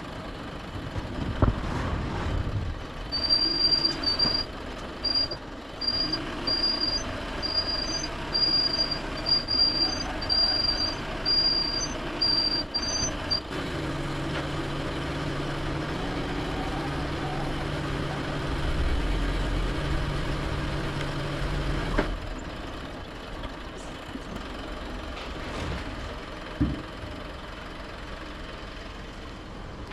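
A truck manoeuvring: a high reversing beeper sounds about three times every two seconds for roughly ten seconds, then a low engine or hydraulic drone switches on and off over a rumbling engine.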